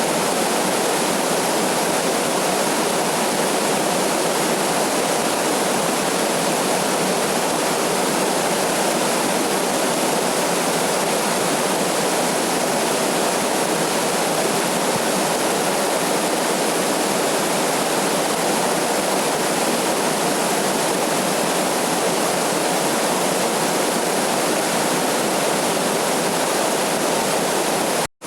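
Waterfall: a steady, even rush of falling water, with a brief dropout to silence just before the end.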